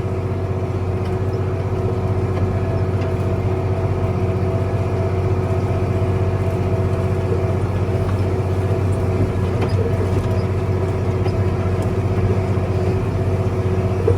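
Case IH tractor's diesel engine running steadily under load from pulling a disc, heard from inside the cab.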